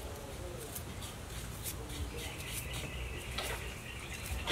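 Birds chirping, with a higher steady trill in the second half and a few light clicks.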